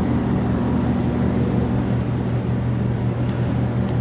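Steady low mechanical hum of several fixed pitches, with a few faint ticks near the end.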